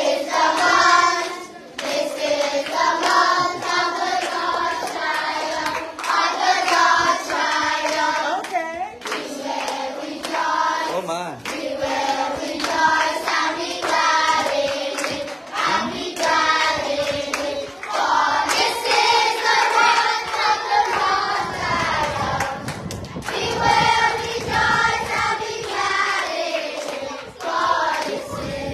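A group of schoolchildren singing together in chorus, clapping their hands along with the song.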